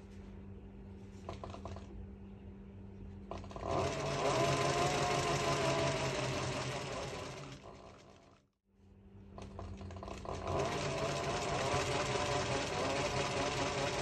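Pfaff 195 walking-foot industrial sewing machine stitching. It starts with slow separate needle-bar knocks, then runs up to speed with a steady mechanical clatter and a wavering motor whine. The sound fades out just past the middle and comes back up with the machine running again.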